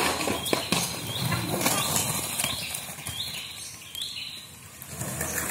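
Skateboard clattering over tiled paving: an irregular run of knocks and rolling rattle from the wheels and board, busiest in the first half and thinning out near the end.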